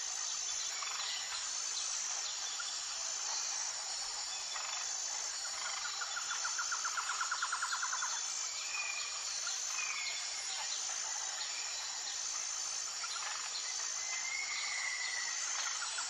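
Rainforest ambience: a steady high insect drone with a regularly repeating pulse, a rapid trill from about six to eight seconds in, and several short bird chirps in the second half.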